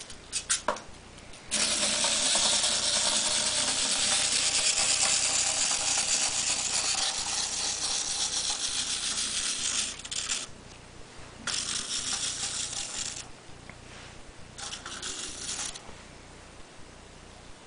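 Small wind-up toy's clockwork mechanism whirring with a fast rattle. It starts after a few clicks about a second and a half in, runs for about eight seconds, then comes back in two shorter bursts.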